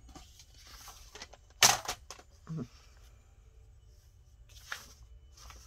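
A paper trimmer cutting paper in one quick swipe of the blade, a short scraping swish about a second and a half in, with quieter rustles and taps of paper handling around it.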